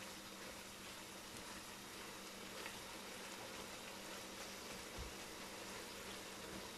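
Chicken and vegetable filling frying in a nonstick wok with a steady, gentle sizzle as it is stirred, over a faint steady hum; a couple of soft knocks come about three and five seconds in.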